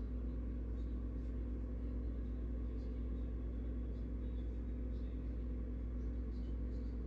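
A steady low hum with an even pitch that does not change, overlaid by faint, short high chirps every second or so.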